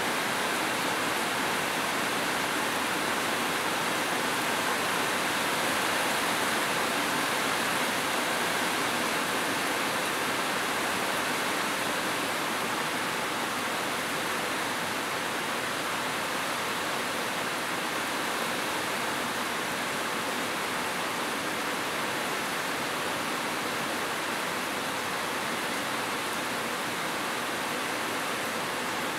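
Heavy rain pouring onto corrugated metal roofs and trees, a dense, steady hiss with no single drops standing out.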